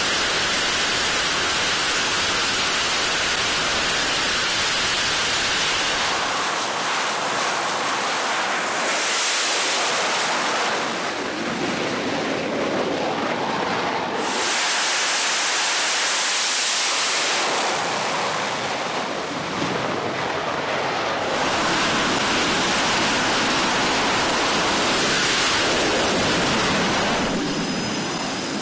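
F/A-18 jet engines running at high power for catapult launches on a carrier flight deck, heard as a steady rushing noise whose character shifts abruptly several times.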